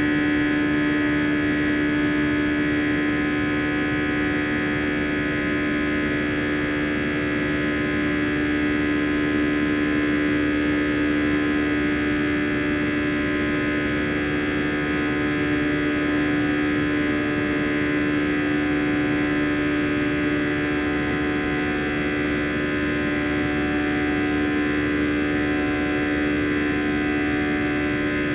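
Airbus A320's CFM56-5A turbofan engines heard inside the cabin, running steadily with their buzz: a drone of many fixed tones over a rushing noise, the strongest a low hum.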